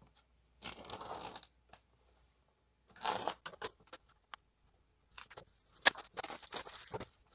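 Clear plastic shrink-wrap being torn and pulled off a cardboard box, crinkling in three bursts, with a sharp snap about six seconds in.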